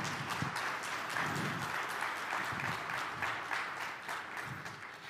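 Audience applauding: many hands clapping in a dense patter that dies down near the end.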